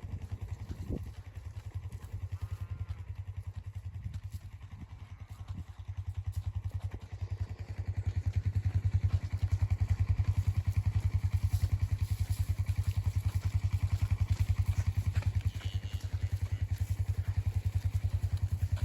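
Vehicle engine running with a steady, fast low pulse, getting louder about eight seconds in.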